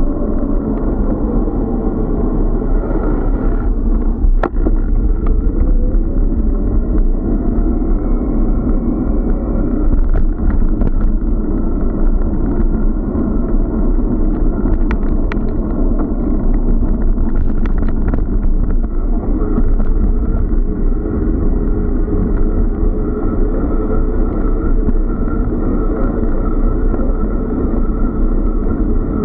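Steady, muffled rumble of wind and ride vibration picked up by a bicycle-mounted Hawkeye Firefly 8S action camera while riding, with a few sharp knocks from bumps in the path.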